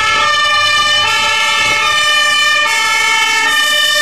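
German fire engine's two-tone siren (Martinshorn), switching back and forth between a higher and a lower steady pitch, each held just under a second.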